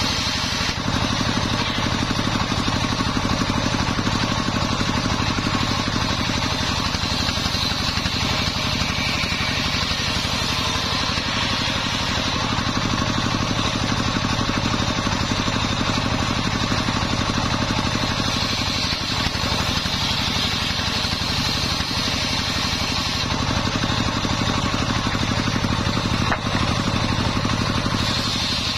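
Homemade table circular saw running with a steady drive hum, its blade ripping lengthwise through sengon boards. The cutting comes and goes as the boards are fed.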